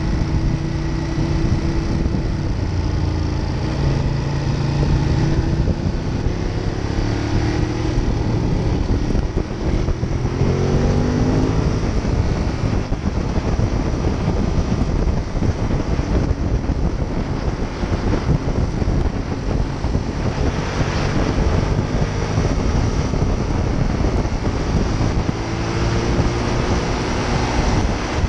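Ducati Monster 821's L-twin engine running at road speed under a heavy rush of wind and road noise. The engine note rises as the bike accelerates, once about ten seconds in and again near the end.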